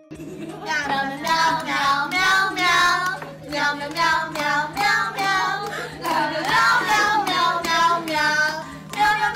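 A high, childlike voice singing a melody in phrases of a few seconds each, over a steady low hum.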